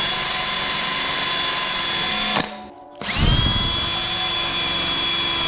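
Cordless drill spinning an abrasive sanding ball against an aluminum bar to clean it before welding, its motor giving a steady whine. It stops about two and a half seconds in, then spins back up half a second later with a rising whine and runs on.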